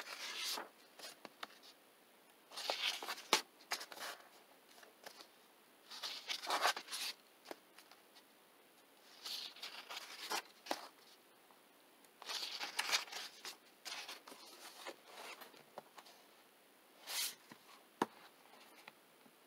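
Pages of a paperback coloring book turned by hand: a papery swish and rustle every few seconds, with small clicks of the paper between turns.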